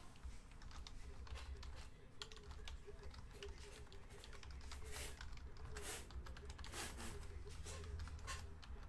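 Typing on a computer keyboard: irregular clatter of keystrokes, a few louder key presses about five and six seconds in, over a low steady hum.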